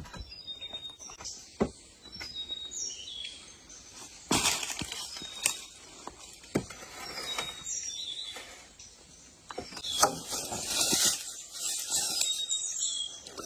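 Small birds chirping, with scattered sharp clicks and knocks and a couple of louder bursts of rustling about four and ten seconds in.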